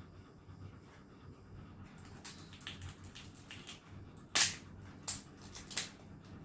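Eating sounds at close range: a run of short sharp cracks and clicks, the loudest about four and a half seconds in, with smaller ones around it.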